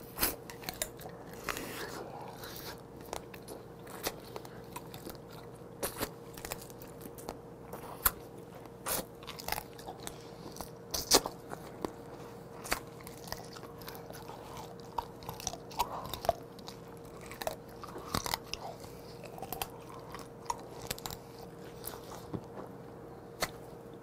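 Close-up eating of raw blue crab: biting, chewing and sucking the flesh from pieces of shell, with irregular sharp crunches and clicks.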